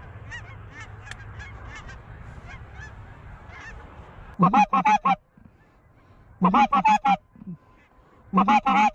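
Hand-blown goose call giving three quick runs of loud, squeaky clucks about two seconds apart, each run lasting under a second. It is a squeaky cluck, blown to turn the geese circling overhead. Before the first run, geese honk faintly in the distance.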